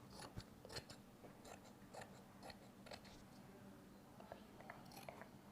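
Tailoring scissors snipping through folded cloth, faint short cuts about every half second.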